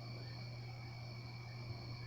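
Steady low hum with a faint, even high-pitched whine over it, and one faint tap about two-thirds of the way through.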